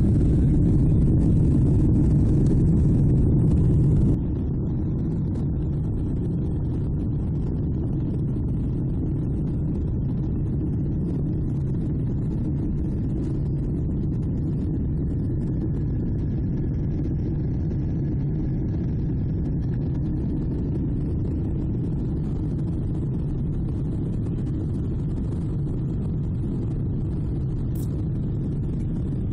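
Steady low rumble of a Boeing 777's engines and airflow heard inside the cabin while climbing after takeoff. The rumble drops suddenly in level about four seconds in.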